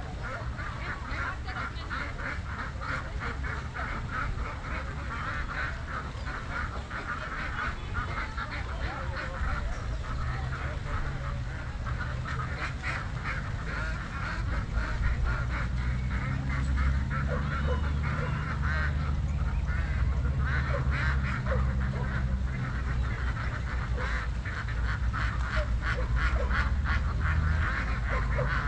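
A flock of ducks quacking, many short calls overlapping without pause. Under it a low rumble that grows louder from about halfway through.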